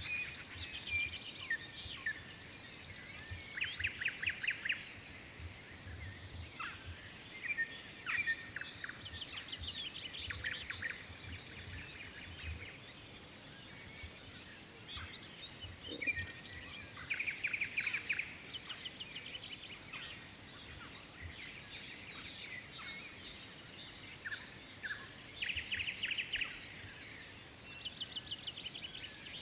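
Dawn chorus: many songbirds singing at once. Every several seconds a loud run of fast repeated notes stands out over the continuous warbling and chirps.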